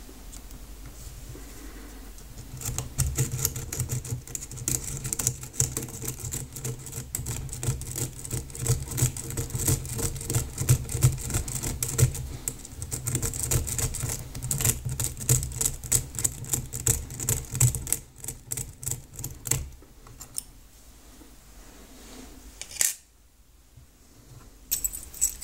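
Rapid metallic clicking and scraping of a lockpick rake worked in and out over the pin tumblers of a TESA Assembly lock. The quick raking strokes start about two seconds in and run to about eighteen seconds, then thin out to a few single clicks near the end.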